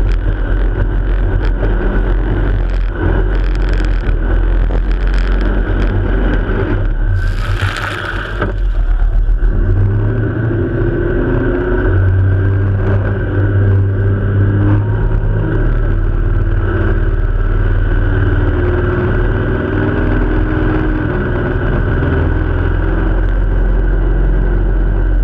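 Jet boat running at high speed across open water, its engine drone mixed with rushing wind and water. A brief loud hiss comes about eight seconds in, after which the engine's steady note stands out more clearly.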